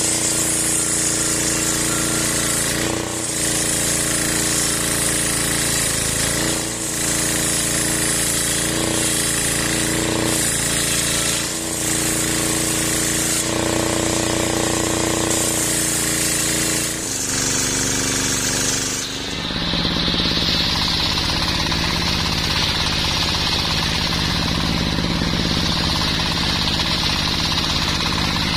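Engine-driven circular saw with a sharp steel blade running steadily while sawing mahogany, with short dips in the sound every few seconds. About 19 seconds in, the engine note drops lower and stays there.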